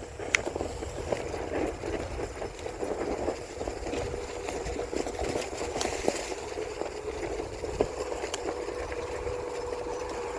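Onewheel electric board's hub motor whining steadily as it rolls over a dirt trail, with rumbling tyre noise and scattered sharp clicks and knocks.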